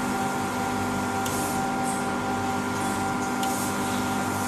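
Dry sandblasting cabinet in use: a steady hiss of compressed air and blast media from the nozzle, with a constant machine hum underneath.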